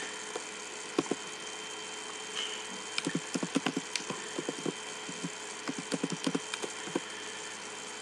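Computer keyboard keys clicking as a command is typed: one sharp keystroke about a second in, then a run of quick key clicks from about three to seven seconds, over a faint steady hiss.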